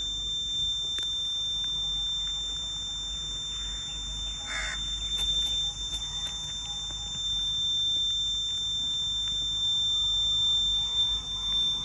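Steady insect drone: one continuous high-pitched tone with a thinner hiss above it, unchanging throughout, with a brief extra call about four and a half seconds in.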